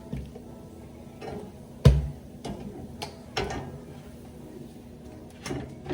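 Kitchen clatter: a handful of separate knocks and clicks of utensils and dishes being handled. The loudest is a heavy thud about two seconds in.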